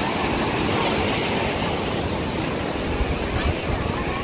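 Sea surf breaking and washing up a sandy beach, a steady roar of noise, with low wind buffets on the microphone about three seconds in.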